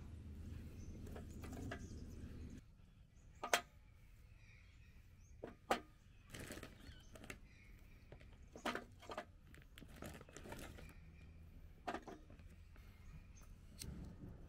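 Split kindling sticks being set down one at a time in a black metal fire-pit tray, giving a scattering of short, sharp knocks of wood on metal. A low steady hum stops suddenly about two and a half seconds in.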